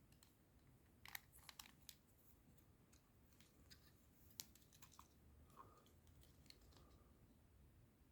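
Faint clicks and taps of plastic Lego Technic pieces being handled while the rear wheel is fitted onto its axles. There is a quick cluster of clicks about a second in, a sharper single click near the middle, and a few lighter ticks after.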